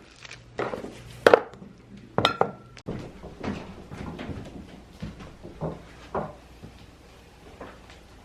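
A run of sharp knocks and clinks as objects are handled in a small room, a few of them with a short metallic ring. The loudest come in the first three seconds, then softer knocks.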